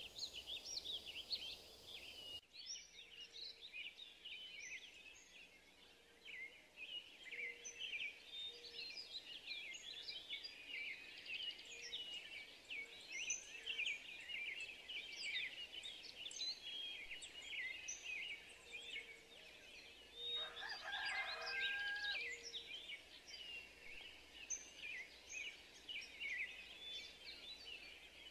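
Outdoor chorus of many small birds chirping and trilling in short, quick notes throughout. About twenty seconds in comes one louder, lower call lasting about two seconds.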